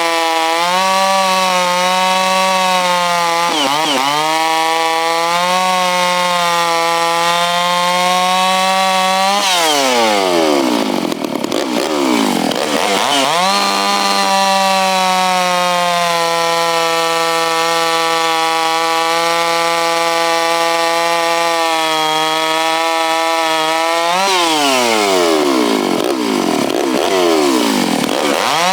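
Freshly rebuilt Stihl MS660 two-stroke chainsaw running hard at high revs. The throttle is let off twice, the revs falling away and climbing back each time.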